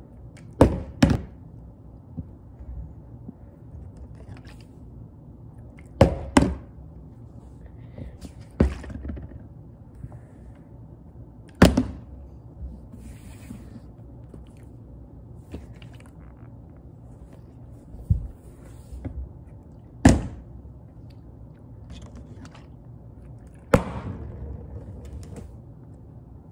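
Partly filled plastic water bottle tossed in bottle flips and hitting a hardwood floor: a series of hard thunks spaced several seconds apart, some landing as a quick double hit as the bottle bounces or tips over.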